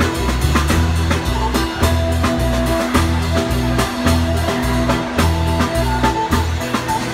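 Live Pontic Greek dance music: a bowed Pontian lyra over keyboards, bass and a steady drum beat.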